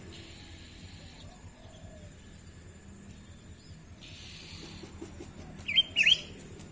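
A small songbird gives two loud, sharp chirps in quick succession near the end, each a quick down-and-up pitch sweep. Chickens can be heard faintly in the background.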